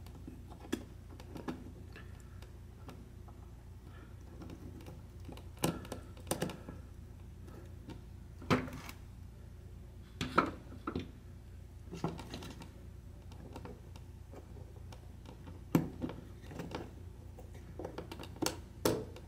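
Scattered small clicks and light knocks, about a dozen spread unevenly, as a radio's circuit board is handled and its selector switch is worked into the radio position. A steady low hum runs underneath.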